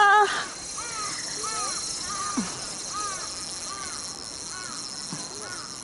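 Birds calling outdoors: a loud call right at the start, then a run of short, repeated calls about every half second, over a steady high-pitched hiss.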